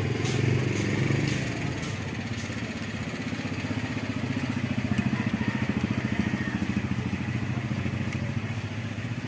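Motorcycle engine idling steadily with an even low pulse. A few light clicks in the first two seconds come from the phone holder being fitted to the handlebar.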